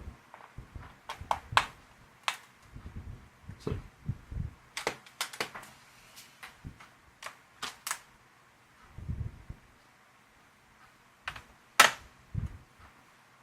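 Irregular small clicks and taps of hands handling a laptop's plastic case parts and screws, with a few soft low knocks; the sharpest click comes near the end.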